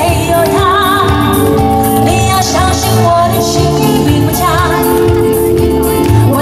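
A woman sings a pop song into a microphone with a band backing her on drums, bass and electric guitar. Her sung notes waver with vibrato over a steady beat.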